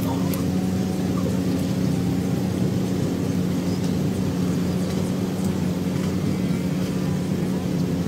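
A steady low mechanical hum with a few held low pitches, unchanging throughout, with a few faint clicks on top.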